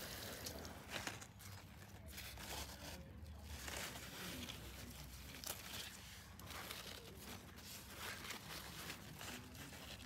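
Pumpkin plant leaves rustling and crinkling faintly as a hand pushes through them, with irregular small crackles.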